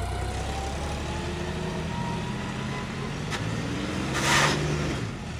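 Tractor diesel engine running, its pitch rising as it is revved, with a brief loud rush of noise a little over four seconds in.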